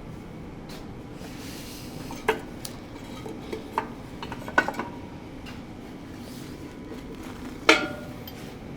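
Metal clanks and clinks of steel parts or tools knocking together, a handful of sharp hits a second or so apart, with the loudest, briefly ringing clank near the end.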